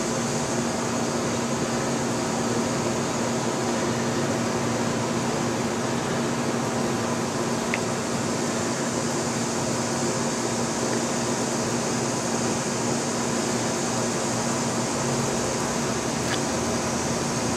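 Steady machine hum with a hiss, unchanging throughout, with two faint clicks.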